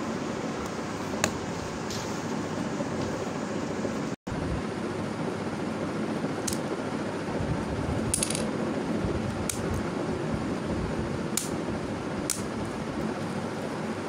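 Hard plastic clicks and clacks from a building-block 3x3x3 puzzle cube being turned and handled: single sharp clicks every second or two, with a quick cluster of clicks about eight seconds in, when a brick tile comes off. A steady hiss runs underneath, and the sound cuts out for an instant just after four seconds.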